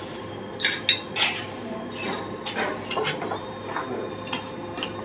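Crushed ice being scooped and dropped into a cocktail glass, with a louder scrape and rush of ice about a second in, then a run of light clinks of metal bar tools against glass and steel.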